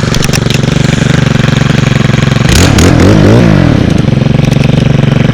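Stihl KM111R KombiMotor's 4-MIX engine running steadily, with the throttle blipped up and down a few times in quick succession near the middle, the revs rising and falling.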